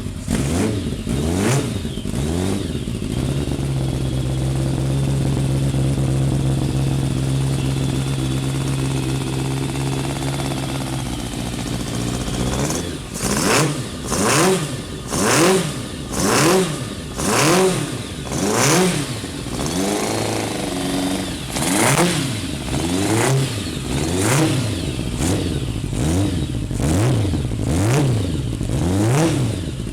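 Bimota YB8's Yamaha FZR1000 inline-four engine running on its first start since a rebuild. It idles steadily for about ten seconds, then the throttle is blipped over and over, the revs rising and falling roughly once a second.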